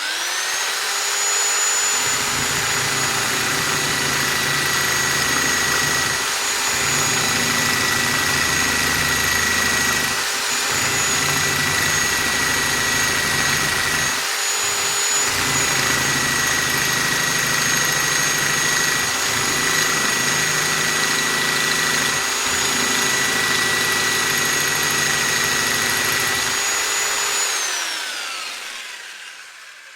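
Electric drill running free: it spins up quickly to a steady high whine, holds speed with a few brief dips, then winds down with falling pitch near the end.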